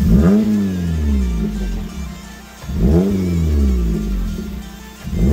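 Modified Suzuki Swift's exhaust as the engine is blipped at standstill: the revs jump sharply and fall back over about two seconds, twice, with a third blip starting at the very end.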